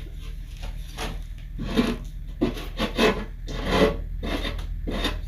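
A hand tool dragged along the edge of a plywood panel in short, separate strokes, a little more than one a second, trimming iron-on edge banding flush.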